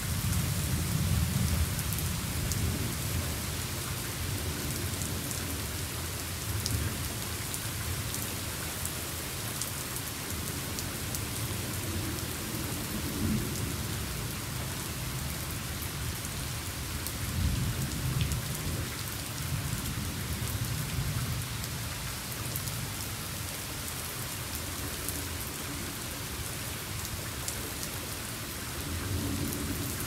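Steady heavy rain hissing, with sharp ticks of single drops close by. Low rolls of thunder swell and fade several times, the longest a little past the middle.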